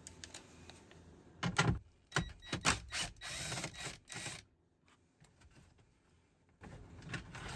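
Hands and a tool working at a plastic dashboard opening: several separate clicks and knocks, with a short rattle about three seconds in and a few more light knocks near the end.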